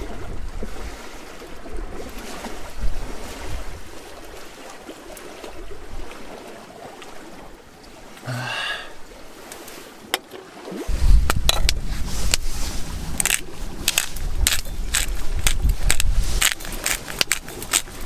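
Lakeshore ambience of water lapping and wind, with a short rising squeak just past halfway. From about eleven seconds in, gusty wind rumbles on the microphone, joined by a run of sharp clicks and crackles.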